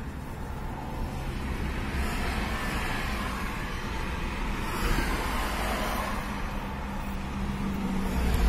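Road traffic noise: steady engine and tyre rumble of cars on a busy road, swelling briefly about five seconds in.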